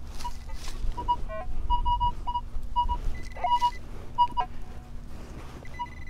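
Metal detector sounding short beeps at several different pitches over a target in a deep hole, one longer tone near the end, with scraping strokes of digging in dirt in between.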